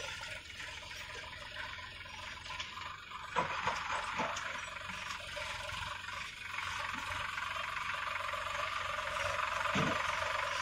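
Sonalika Tiger 50 DI tractor's diesel engine working under load, pulling a full trolley of earth through soft sand in second high gear, heard from a distance and growing louder as it draws closer. A few knocks about three and a half seconds in.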